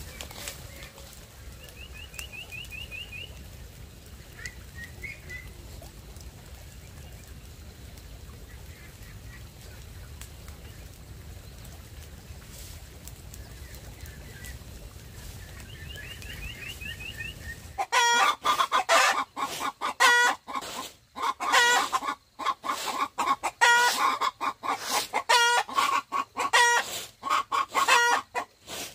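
A bonfire of dry thatch and bamboo debris burning with a steady rush, with a few faint high trills. About eighteen seconds in it gives way to chickens clucking loudly in rapid, repeated calls.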